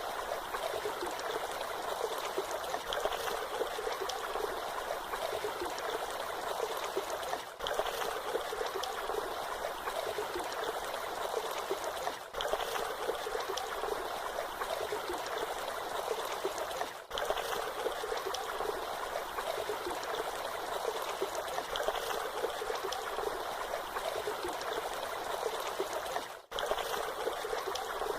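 Waterfall: water falling and splashing in a steady, even rush with little deep rumble, broken by a few very brief dips in level.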